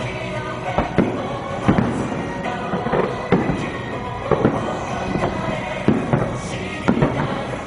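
Fireworks bursting in a show set to music: a series of sharp bangs, roughly one a second, over loud music.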